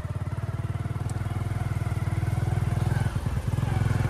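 Motorcycle engine running steadily under way, heard from the rider's seat, with a rapid, even firing pulse.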